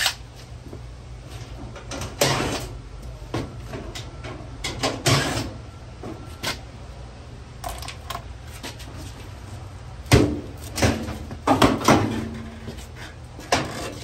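Sheet-metal panels of a clothes dryer being handled and pulled apart: a series of separate clunks and rattles, with a cluster of louder knocks near the end as the front panel comes off.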